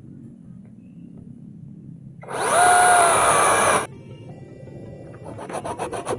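Cordless brushless chainsaw motor spinning up with a whine, running for about a second and a half, then stopping suddenly. Near the end the chain starts biting into wood with a rapid, rhythmic rasp that grows louder.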